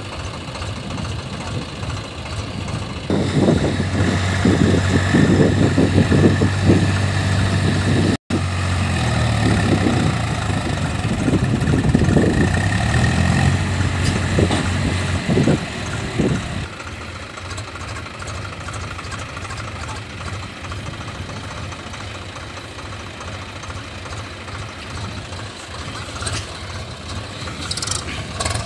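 Swaraj tractor diesel engines running, working hard under heavy load with repeated surges while pulling a laden tractor and trailer through river water. After about 16 seconds they settle to a quieter, steady idle.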